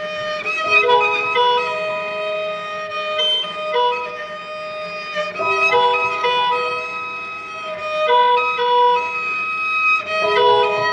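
Background music: a slow instrumental piece for cello and piano, with held bowed notes over piano chords, changing every half second or so.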